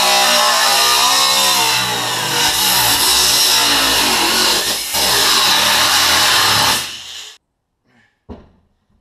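Angle grinder with a cutting disc cutting through the sheet-metal roof of a truck cab, its motor pitch wavering as the load changes. About seven seconds in it winds down and stops, followed by a couple of light knocks.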